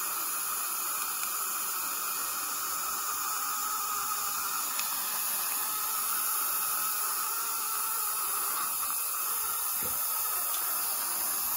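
Dental suction drawing air steadily through a Nola dry-field mouth isolation system, a constant even hiss.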